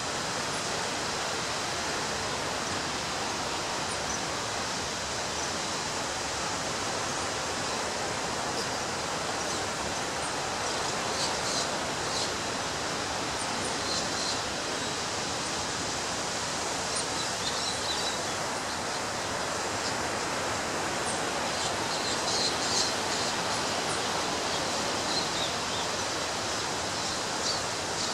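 Steady, even rush of ocean surf on a beach, with short high bird chirps now and then through the second half.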